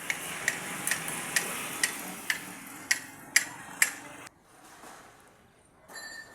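Sharp, evenly spaced ticks, about two a second, over a steady hiss; they stop abruptly about four seconds in.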